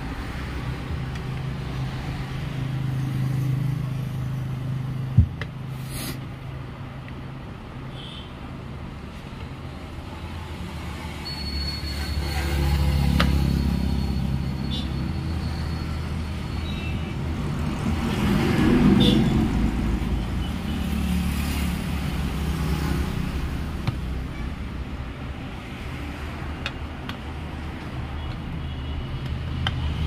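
Background road-traffic rumble that rises and falls twice as vehicles pass. Over it come a few sharp clicks from a screwdriver tightening the ceiling fan motor's cover screws.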